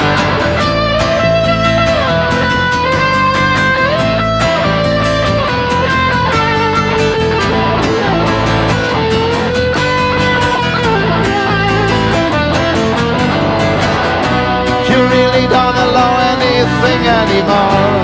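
Electric rock band playing an instrumental break: an electric guitar lead line whose notes slide up and down, over bass guitar and a steady rhythm. The band gets a little louder about 15 seconds in.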